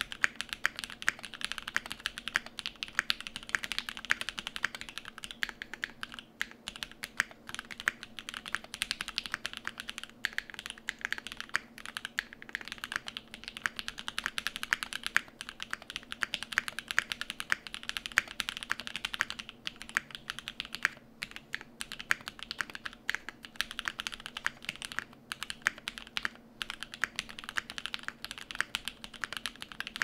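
Gray Studio Think6.5 v2 mechanical keyboard with lubed and filmed Alpaca linear switches on an FR4 plate and GMK keycaps, typed on continuously in quick, dense keystrokes with a few short pauses. A faint steady hum runs underneath.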